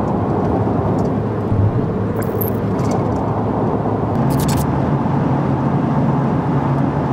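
Steady engine and tyre noise of a moving vehicle, heard from inside the cabin, with a few brief high clicks. The low hum changes tone about four seconds in.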